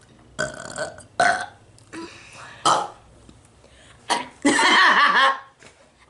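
A string of deliberate, forced burps from a woman and a boy in a burping contest: about five short ones, then a longer, louder one about four and a half seconds in.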